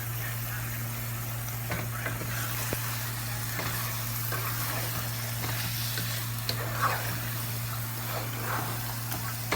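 Chicken curry sizzling in a pan while it is stirred, with scattered clicks and scrapes of the spoon against the pan, over a steady low hum.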